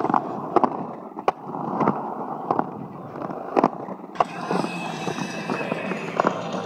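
Skateboard wheels rolling on a concrete skate bowl, a steady rolling noise broken by several sharp clicks and knocks.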